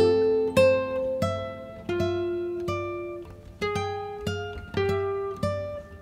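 Background music: a slow melody of single plucked acoustic-guitar notes, each starting sharply and then ringing out and fading.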